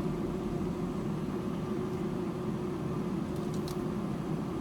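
Steady hum and hiss inside a car's cabin from the running car and its air-conditioning fan, with a couple of faint clicks about three and a half seconds in.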